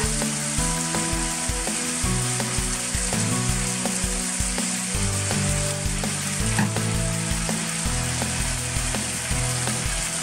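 Diced chicken sizzling steadily in a non-stick frying pan over a gas flame, stirred now and then with a utensil. Background music with a steady beat and bass notes plays underneath.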